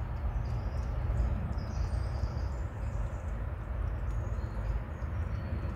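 Steady outdoor rushing noise, deepest in the low range, with faint short high chirps of small birds now and then.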